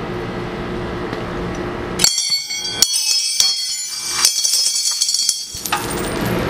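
Metal clattering and ringing starting suddenly about two seconds in: a steel wrench and a pile of coins landing on a steel brake rotor and concrete, with many bright jingling clinks for about three seconds. A steady low hum underlies the first two seconds.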